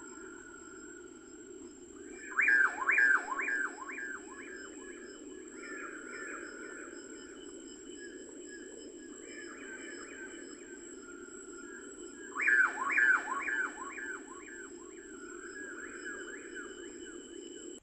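A bird calling twice, each time a quick run of about eight falling notes, the second about ten seconds after the first, with softer bird chirping in between over a steady low hiss.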